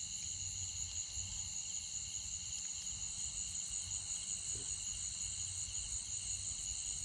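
Steady, high-pitched chorus of insects trilling in several pitches at once, over a low rumble.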